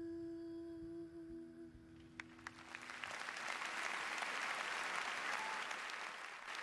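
The last held sung note of a ballad and its accompaniment fade away, then audience applause begins with a few scattered claps about two seconds in and swells into steady full applause.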